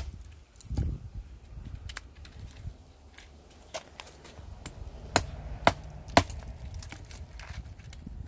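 SOG Tech Bowie knife, an AUS-8 steel hollow-ground blade, chopping into a stick of seasoned oak: about half a dozen sharp strikes at uneven intervals, the hardest three coming close together a little past the middle.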